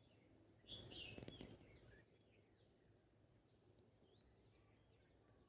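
Faint outdoor ambience with distant birds: a few short chirps about a second in, then scattered faint call notes.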